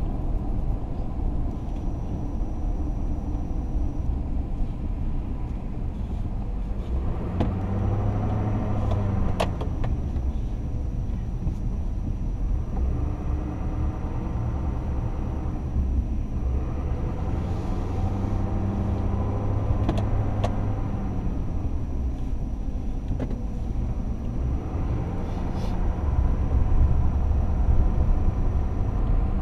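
Truck engine and tyre noise heard from inside the cab while driving, the engine note rising and falling several times as the truck speeds up and slows. A couple of short, sharp clicks are heard along the way.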